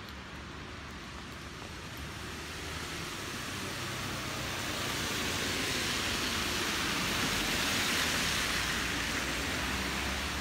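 Steady hiss of rain on a wet city street, with vehicle tyres spraying over the wet asphalt; the hiss swells over several seconds and is loudest about eight seconds in.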